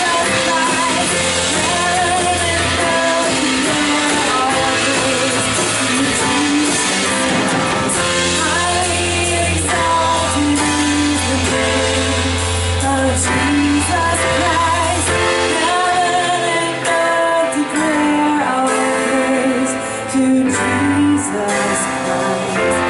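Worship band playing with guitar and sung vocals, a held bass note under the first two-thirds.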